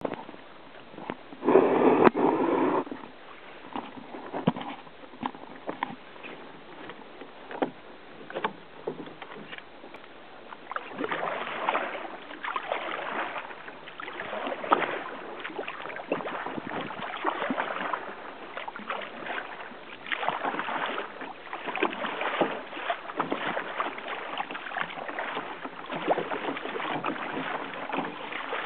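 Paddling a sit-on-top fishing kayak on open sea: paddle strokes and water washing along the hull, swelling every two or three seconds, with small knocks and clicks. A louder rough noise lasts about a second near the start.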